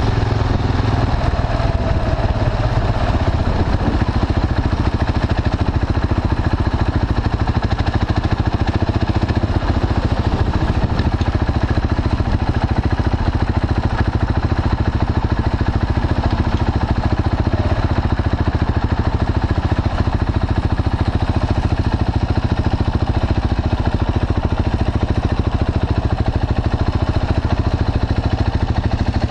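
Single-cylinder engine of a KTM 690 Duke with an Akrapovic slip-on exhaust and decat bypass pipe, running at low, steady revs. The sound stays even, with no big revs.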